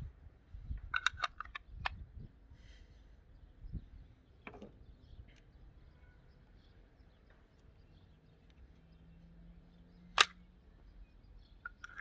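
Metal parts of a Beretta 301 shotgun clicking and knocking as they are handled and fitted together: a few light clicks in the first two seconds, another about four and a half seconds in, and one sharp click, the loudest, about ten seconds in.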